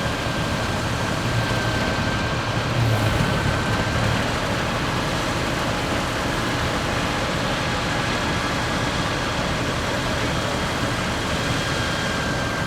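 Deutz F3L514 air-cooled three-cylinder diesel tractor running steadily with a Claas Super pull-type combine threshing wheat behind it, carrying a thin steady whine. The noise swells briefly about three seconds in.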